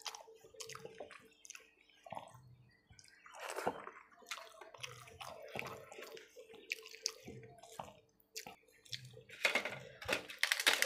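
Wet squishing and small clicks of fingers mixing dal-soaked rice on a steel plate, with soft mouth sounds of eating. Near the end come louder crackles as a piece of fried papad is broken off.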